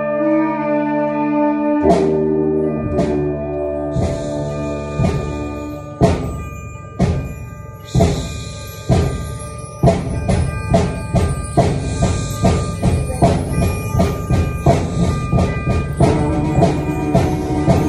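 Concert band music with clarinet and bass clarinet playing along. Held chords give way about two seconds in to percussion hits roughly once a second, with cymbal crashes. Halfway through, the hits quicken into a driving beat of two to three hits a second.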